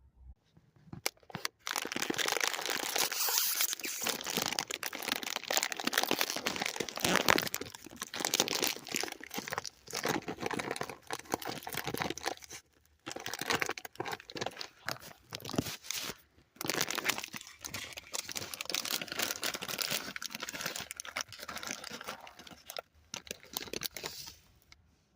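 Cheetos snack bag crinkling and crackling close to the microphone, in long spells broken by two short pauses.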